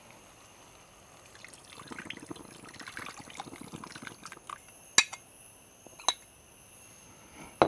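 Thick coconut milk ground with green peppercorns being poured and spooned from a bowl into a pan of masala, a soft wet pouring and scraping. Near the end, two sharp clinks of metal on the pan.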